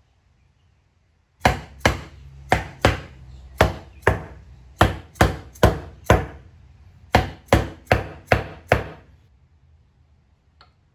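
Wooden mallet striking the ends of a freshly glued hardwood stool's legs about fifteen times, in quick pairs and runs of sharp knocks, knocking the glued joints home. One faint click near the end.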